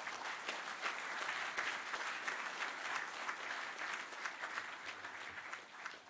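Large audience applauding, a dense steady patter of many hands clapping to welcome a speaker, thinning out over the last second.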